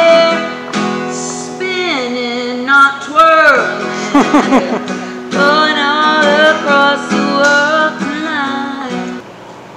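Music: a woman singing over guitar, dropping in level near the end.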